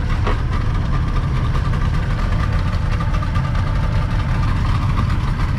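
Twin Yamaha 40 outboard motors running steadily, pushing the boat along.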